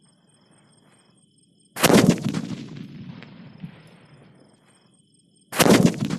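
Sutli bomb firecrackers going off: two sharp, very loud bangs, the first about two seconds in and the second near the end, each followed by a long fading echo. Before the first bang the burning fuse fizzes faintly.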